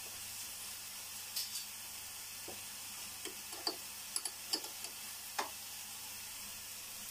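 Faint steady sizzling of a rava uttapam frying in a nonstick pan, with a few small crackles and ticks scattered through the middle.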